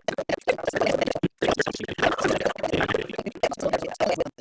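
Garbled, choppy voice audio with a scratchy distortion, broken by several brief sudden dropouts.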